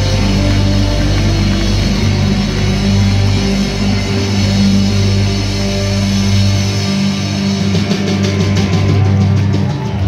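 Rock band playing live with electric guitars and drum kit. The deepest bass drops out about two-thirds of the way through, followed by a run of quick, even beats.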